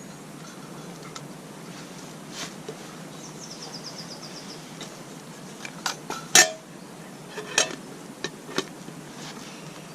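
Scattered metal knocks and clinks of a utensil against a frying pan, a cluster of them between about six and nine seconds in with the loudest near six and a half seconds. A short run of fast, high ticks sounds about three seconds in.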